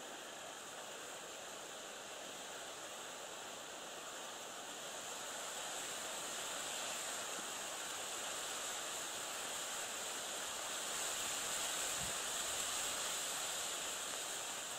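Steady hiss of breeze and rippling lake water, growing a little louder about six seconds in and again near the end.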